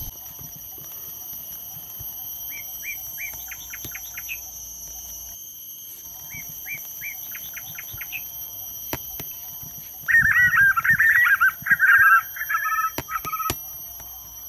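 Birds singing: twice, a few spaced chirps that speed up into a quick trill, then a much louder, warbling song about ten seconds in, with a few sharp clicks near the end, over a steady high-pitched whine.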